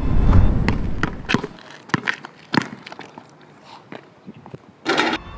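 Added film sound effects: a loud low rumble for the first second and a half, then a string of sharp, separate knocks and clicks, and a short noisy burst near the end.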